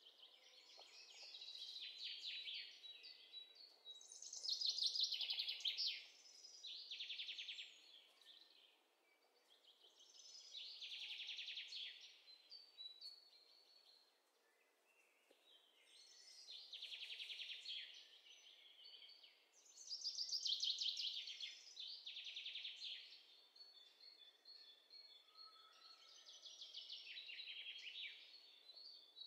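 A songbird singing repeated high trilled phrases, each a second or two long, with short pauses between.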